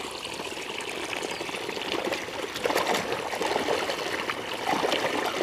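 Water from a hose pouring steadily into a plastic basin of soapy water. From about halfway in it is joined by irregular splashing as a small toy is swished in the basin.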